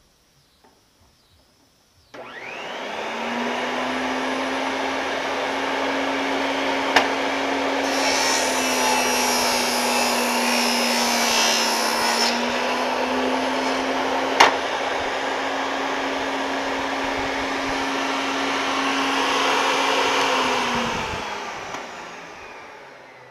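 Ryobi BT3000 table saw switched on about two seconds in, its motor whining up to speed and then running steadily. The blade rips through a wooden board for several seconds, adding a harsh cutting noise and pulling the motor's pitch down slightly under load. Two short sharp knocks come during the run, and near the end the saw is switched off and the blade winds down.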